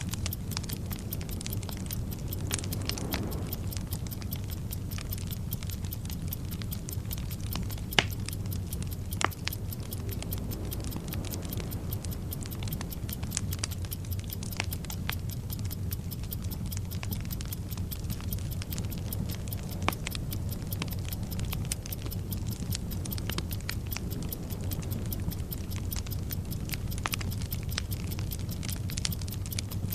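Bomb-timer sound effect: an even clock ticking over a steady hiss and rumble of a burning fuse, with sharp crackles popping at irregular moments.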